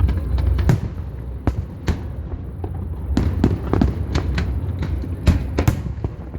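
Fireworks going off: an uneven series of sharp bangs and crackles over a steady low rumble.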